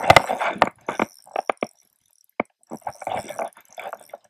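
Handling noise from a Shimano Stratic 1000 spinning reel being cranked and the rod worked while fighting a hooked trout: irregular clicks and scrapes that drop out for about a second in the middle.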